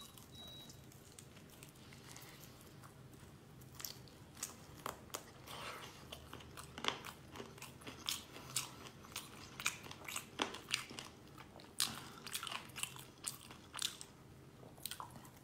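Fried chicken wings being bitten and chewed. The first few seconds are nearly still, then short crunches and clicks come in quick succession from about four seconds in.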